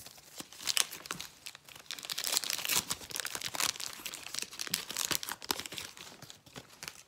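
Plastic wrapper of a Panini Mega Cracks trading-card pack crinkling and tearing as it is opened, an irregular run of crackles.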